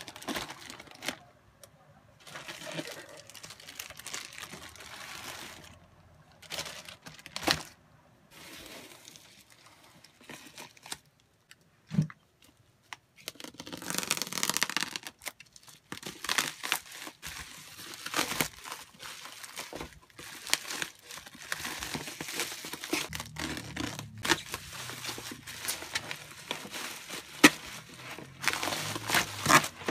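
Plastic packaging being unwrapped by hand: a plastic courier mailer and black bubble wrap with clear tape crinkling, rustling and tearing in irregular bursts. A quiet stretch in the middle ends in a single sharp knock, and the rustling thickens through the second half as the wrap is peeled off a cardboard box.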